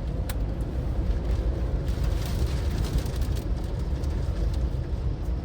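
Strong storm wind near a touched-down tornado, a low rushing rumble that rises and falls in gusts.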